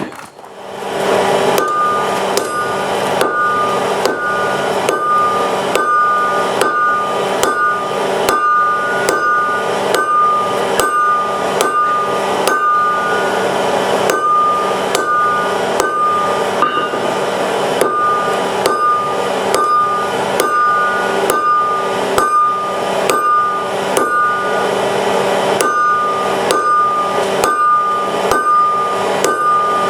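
Blacksmith's hammer striking steel on an anvil in a steady rhythm, about two blows a second. Each blow leaves a clear ringing tone from the anvil, while the steel is forged into a latch part.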